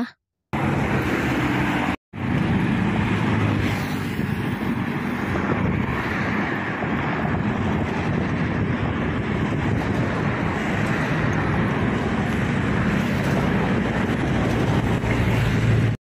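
Steady engine running with a rushing noise over it, dropping out briefly twice near the start.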